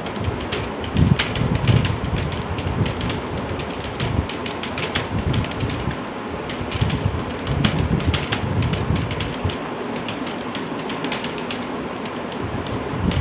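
Computer keyboard being typed on at a steady fast pace: a continuous run of key clicks with heavier low thuds here and there, over a steady background hiss.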